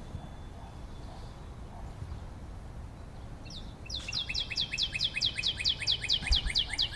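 A bird calling a rapid trill of short down-slurred chirps, about seven a second, starting a little past halfway, over a steady low background hum. There is a soft low bump near the end.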